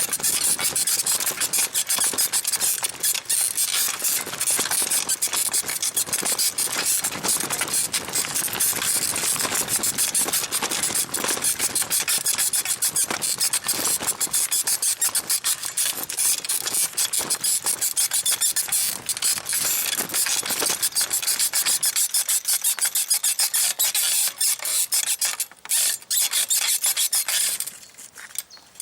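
Springs of a 1970s sprung bicycle saddle squeaking in a fast, continuous rhythm as the saddle is rocked up and down under a rider's weight, stopping near the end.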